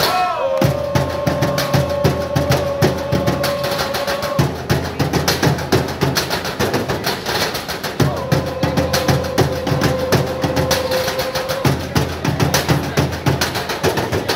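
Metal trash cans played with drumsticks by a percussion trio: a fast, steady rhythm of metallic hits. A long held note sounds twice over the drumming, once early and again past the middle.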